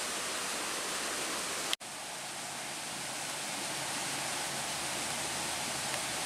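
Steady, even rushing noise of flowing water, like a nearby stream. About two seconds in there is a brief click and a short dropout where the recording is cut.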